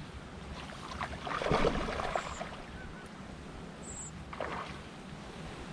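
Wind buffeting the microphone over lapping water, with a burst of splashing about a second and a half in and a shorter splash near four and a half seconds, from a small hooked pike thrashing at the surface as it is played to the net.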